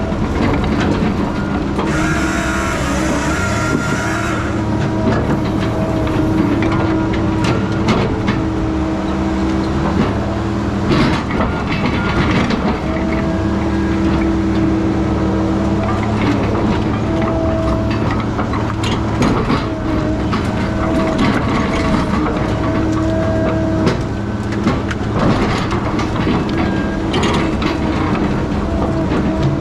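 Heavy diesel logging machine running steadily under load, with repeated metallic clanks and knocks and a brief hiss about two seconds in.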